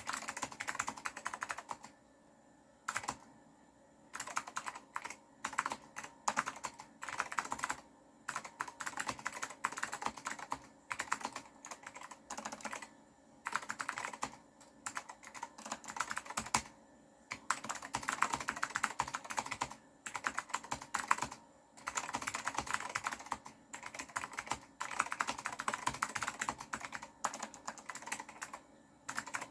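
Typing on an Apple M0116 keyboard with clicky blue Alps switches: dense runs of sharp key clicks in bursts of a second or a few seconds, broken by short pauses.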